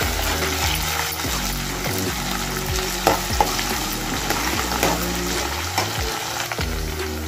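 Onions, green chillies and curry leaves sizzling in hot oil in a steel pan while a metal spoon stirs them, with a few short scrapes of the spoon against the pan about halfway through.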